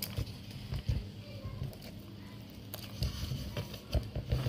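A bare hand mixing thick ground rice-and-urad-dal batter in a steel bowl, giving irregular soft wet squelches and thuds.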